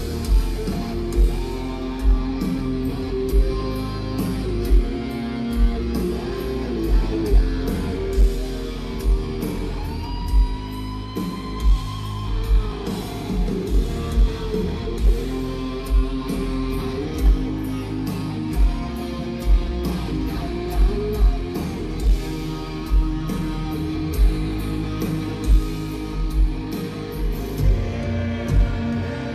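Live rock band playing: a distorted electric guitar lead with bent, sliding notes about a third of the way in, over bass and a steady kick-drum beat.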